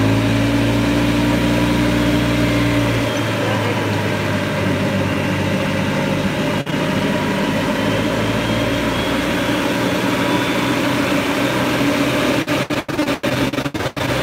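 Golf cart in motion: a steady hum that rises in pitch as it gets going, giving way to an even rushing noise of the ride. Near the end the sound drops out in several quick gaps.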